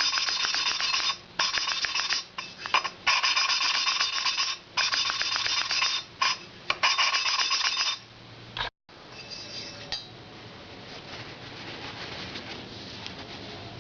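A Harley-Davidson Sportster 1200 exhaust valve being hand-lapped into its seat with cutting compound: the lapping tool spins the valve back and forth, grinding gritty against the seat in bursts with brief pauses where the valve is lifted to bring in fresh compound. About eight and a half seconds in the grinding stops abruptly, leaving a much fainter scratching.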